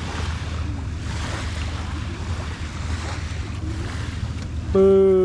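Small waves washing on a beach with wind buffeting the microphone as a steady low rumble; near the end a person starts a loud, drawn-out call.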